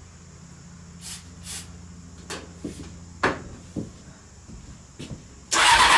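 A few light knocks and clicks, then in the last half-second the Honda CBR600 inline-four engine is turned over on its electric starter, loudly. The engine is reluctant to start after a head-gasket rebuild, and the owner wonders whether the timing is off.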